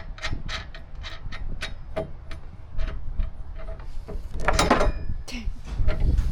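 A series of sharp clicks from hand tools working on the side-step mounting brackets, with a louder scraping rustle about four and a half seconds in.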